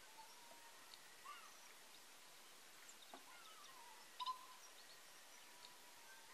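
Faint bird calls over a steady hiss: scattered short chirps and sliding whistles, with a brief cluster of sharper chirps about four seconds in and a held note near the end.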